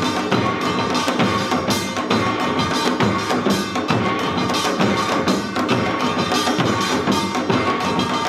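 Korean samul nori percussion ensemble playing janggu hourglass drums in a fast, dense rhythm of many overlapping strokes, with a metallic ringing carried under the drumming.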